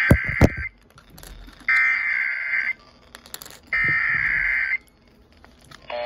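Emergency Alert System SAME header: three bursts of high-pitched digital data tones, each about a second long and a second apart, played through a radio's speaker, marking the start of a new alert. A few low handling thumps come with the first burst.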